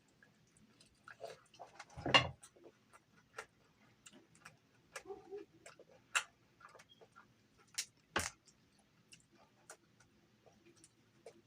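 Close-up eating of crispy fried chicken: scattered crunching bites, chewing and lip smacks as small irregular clicks. A heavier thump comes about two seconds in and another about eight seconds in.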